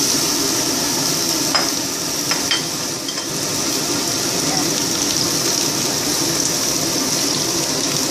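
Diced pumpkin sizzling in hot oil in a frying pan, a steady frying hiss, with a few light knocks about one and a half to two and a half seconds in.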